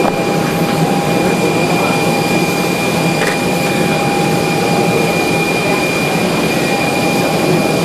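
Aircraft turbine engine running steadily at idle: a loud, even rush of noise with steady high-pitched whine tones.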